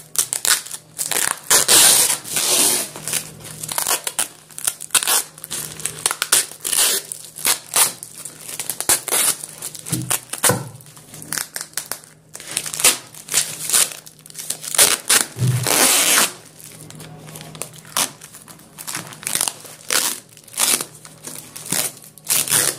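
Brown packing tape being peeled and ripped off a plastic courier mailer, with the mailer's plastic crinkling under the hands: a long run of irregular rasping rips and rustles.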